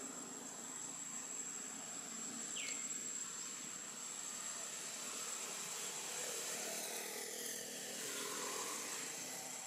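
Tropical outdoor ambience: a steady high-pitched insect drone over a soft background hiss, with one short chirp about two and a half seconds in.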